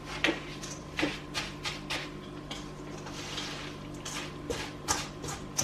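Chocolate crackle mixture, cereal coated in melted Copha, being stirred in a mixing bowl: irregular scrapes and sharp taps of the utensil against the bowl, with a soft crackle of the cereal between them.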